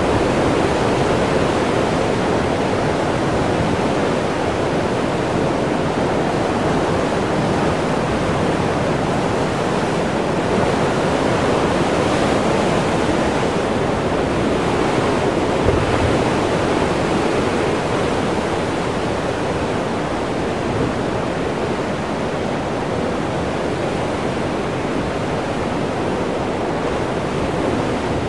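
Heavy ocean surf surging and breaking among rocks and through a spouting horn: a steady, dense rush of churning water, with a brief low thump about halfway through.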